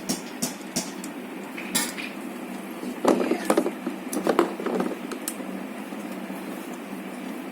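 Scattered clicks and knocks of hands working wire connectors and plastic parts while fitting the wires onto a new forward/reverse switch, with a quick run of them about three to five seconds in.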